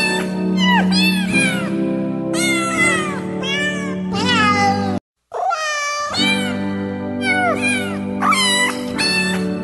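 Cats meowing over and over, short rising-and-falling calls one after another, with background music underneath. The sound cuts out completely for a moment about five seconds in.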